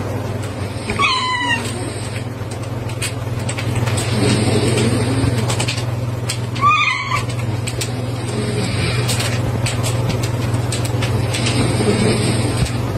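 A domestic cat meowing twice, each a short call of about half a second, the second about five and a half seconds after the first, over a steady low hum.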